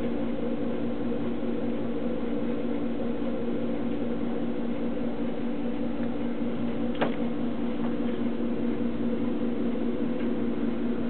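Steady electric hum of a running appliance, several even tones held level throughout, with a brief faint squeak about seven seconds in.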